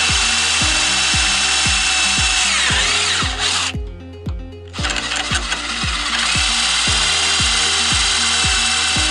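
Power drill running steadily, its motor winding down about three seconds in, stopping for about a second, then running again, driving screws to reattach fittings. Background music with a steady beat plays underneath.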